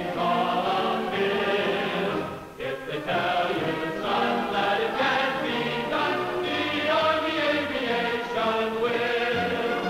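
Soundtrack music: a choir singing held notes over the score, with a short dip about two and a half seconds in.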